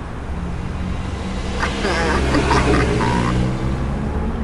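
A truck engine running steadily, swelling louder toward the middle. A brief voice-like call sounds about two seconds in.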